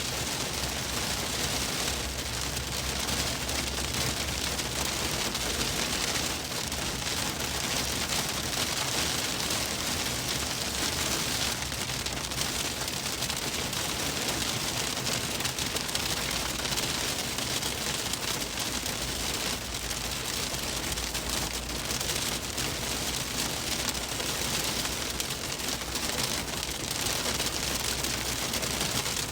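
Storm precipitation pelting a moving car's roof and windshield in a dense, steady patter, heard from inside the cabin over a low road rumble.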